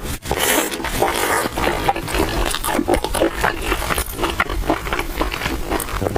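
Biting and chewing a crispy oil-skin bun with pork and cabbage filling: a run of irregular crunches and mouth sounds.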